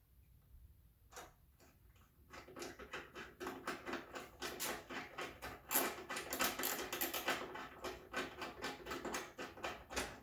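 Ratcheting Torx driver clicking rapidly as it runs a bolt in, starting about two seconds in.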